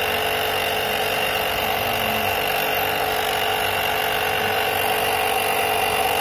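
A motor running steadily: an even mechanical drone with a constant high whine above it.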